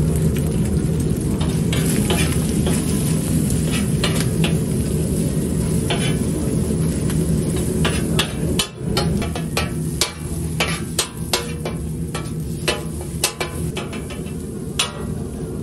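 Eggs and crumbled sucuk sizzling on a large flat steel griddle while a metal spatula chops and scrapes through them. The blade's sharp clacks on the griddle come in irregular strikes, thicker from about halfway through, over a steady low hum.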